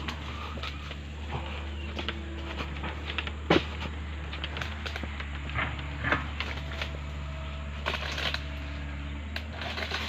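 Sharp knocks of an oil palm harvesting chisel on a pole striking the palm's frond bases and fruit-bunch stalks, a few separate blows with the strongest about three and a half seconds in, over a steady low hum.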